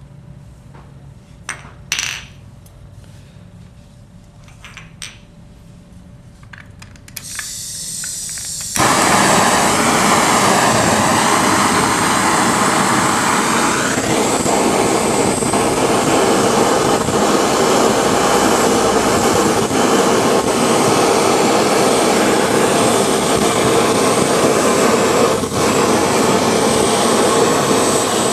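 A few light clicks and clinks of metal being handled, then a canister-mounted butane gas torch hisses on about seven seconds in and lights about a second later, burning with a loud, steady rushing hiss. The flame is heating the engine's crankcase housing so it expands off the rear bearing.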